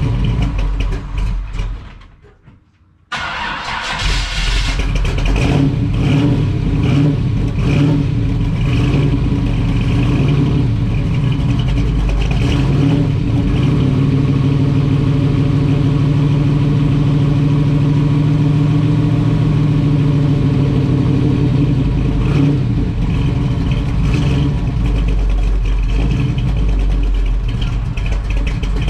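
Built 1970 LT-1 350 small-block V8 with Edelbrock dual quads and Flowmaster mufflers, on a cold start: it dies out about two seconds in, is restarted a second later with a quick blip of revs, then idles steadily.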